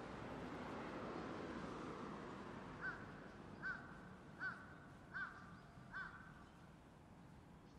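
A bird calling five times in an even series, about one call every 0.8 s, starting about three seconds in.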